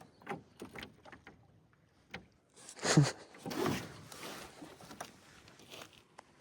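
A few light clicks and knocks, then a louder splash and swish of water at a small boat about three seconds in, fading over a second or so.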